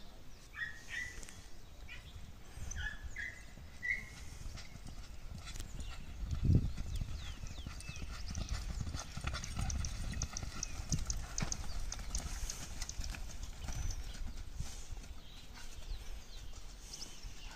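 Hoofbeats of a galloping horse and a running bull on loose sand, growing louder and denser about six seconds in, with one heavy thump at that point.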